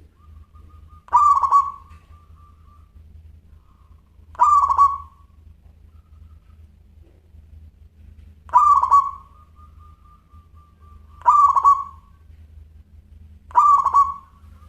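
Zebra dove (perkutut) calling: five short coos a few seconds apart, over a faint steady low hum.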